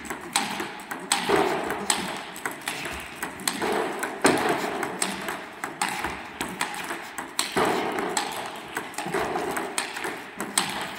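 Table tennis multiball practice: celluloid-type balls struck by rubber bats and bouncing on the table, a run of sharp hollow clicks in quick succession, echoing in a sports hall.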